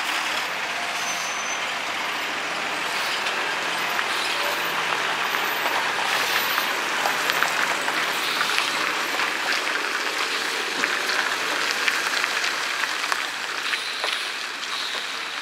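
Overloaded multi-axle lorry rolling slowly down a hairpin bend and passing close by: a steady hiss over a faint, low engine note, with many small crackles from the tyres on the gritty road. Loudest as it passes midway, fading near the end.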